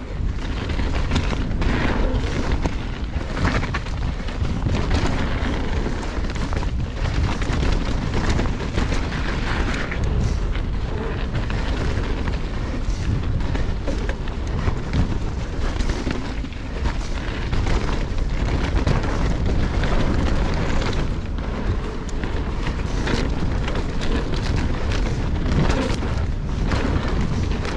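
Mountain bike descending a dirt and gravel singletrack at speed: wind buffeting the camera microphone as a steady low rumble, with the hiss of knobby tyres on loose dirt and frequent short clatters as the bike rattles over bumps.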